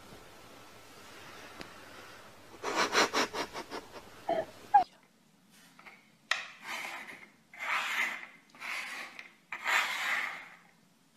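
A quick burst of rustling and sharp clicks ending in two short squeaky notes, then about five scraping rubs of a small object pushed back and forth by hand across a wooden tabletop.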